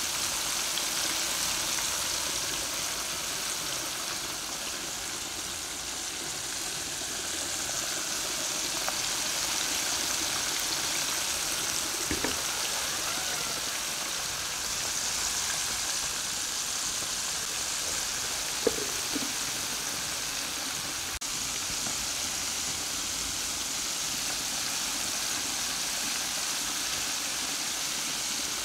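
Flour-coated chicken pieces deep-frying in a pan of hot oil, sizzling steadily. Two brief clicks come about 12 and 19 seconds in.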